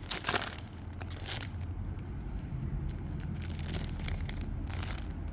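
Foil wrapper of a Topps Chrome Update trading-card pack being torn open and handled: a few short rips and crinkles over a low steady hum.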